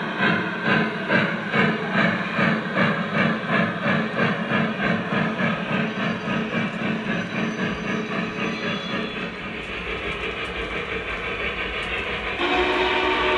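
Sound system of a Lionel Vision Line Union Pacific Challenger 4-6-6-4 model steam locomotive playing steam exhaust chuffs, an even rhythm of about three a second that slowly fades. Near the end a steady multi-tone sound comes in suddenly, like the locomotive's whistle.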